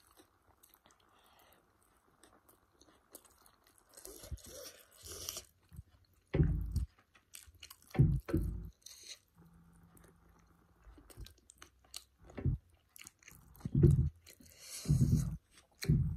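Close-miked chewing and biting of paratha with paneer curry. After a quiet first few seconds it comes in irregular short, dull bouts of mouth sounds.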